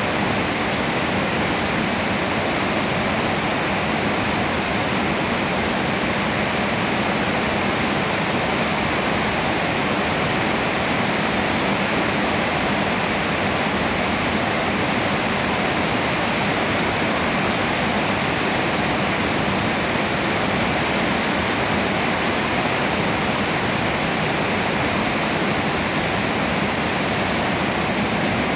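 Steady rain falling: an even hiss with no single drops standing out, unchanging throughout.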